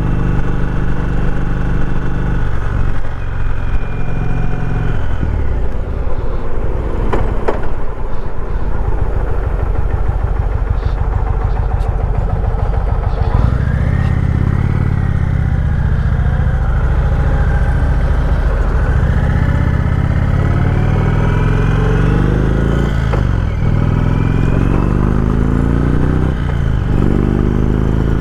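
Motorcycle engine heard from the bike, running low through a stop-sign turn, then pulling away about halfway through and accelerating, its pitch climbing and dropping back at two upshifts near the end.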